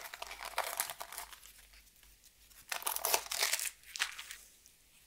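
Foil wrapper of a trading-card booster pack crinkling and rustling in the hands as it is opened out and the cards are taken out, in several short bursts: through the first second, again around three seconds in and briefly near four seconds.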